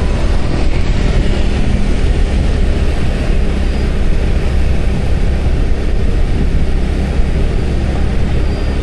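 Riding noise from a motorbike moving along a city street: a steady mix of engine and road noise, with wind rumbling on the microphone.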